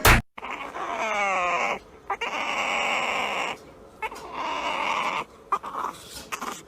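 A dog vocalizing in three long, drawn-out calls with short breaks between them. The first call slides downward in pitch.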